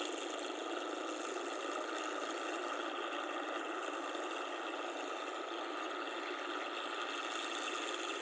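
Rice combine harvester's engine running steadily, a constant machine hum that holds the same pitch throughout.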